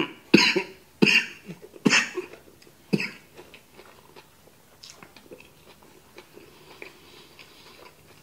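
A man coughing in short fits, about four hard coughs in the first three seconds, after sucking a shred of seaweed from his fried rice into his throat. Then only soft chewing and mouth sounds.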